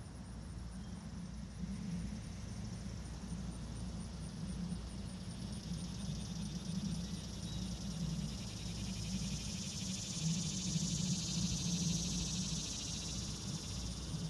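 Outdoor ambience: insects calling in a steady high buzz that grows louder in the second half, over a steady low rumble.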